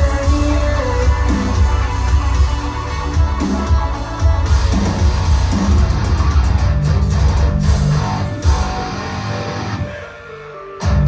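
Rock music with guitar and heavy bass played loudly through Revel M16 speakers driven by a Vincent SP-331 tube-input power amplifier. The music drops to a quieter passage about ten seconds in, then comes back loud.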